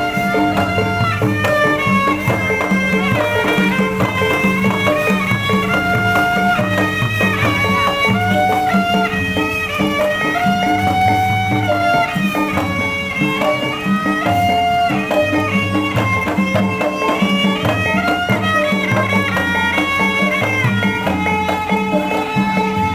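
Betawi ondel-ondel accompaniment music: a stepping high melody line over steady drone tones and a regular drum and gong beat.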